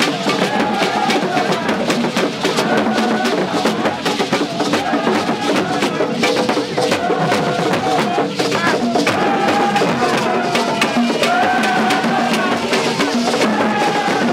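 Percussion music with drums and quick, sharp wood-block-like knocks, and voices carrying a wavering tune over it.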